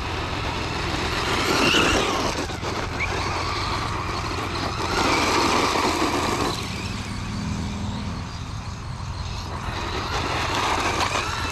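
FTX Crossbow 1/10 brushless RC truggy driving, its motor whine and tyre noise swelling louder three times as it comes close. The truck is running slower than expected, which the owner puts down to its stock motor.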